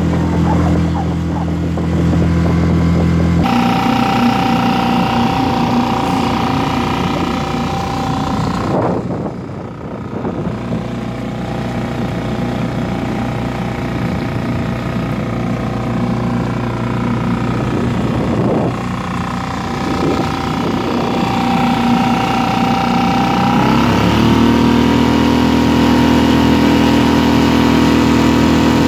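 Small outboard motor on an inflatable boat running under way, with a steady engine note over the rush of water. The note changes a few times and drops to a lower pitch about three-quarters of the way through.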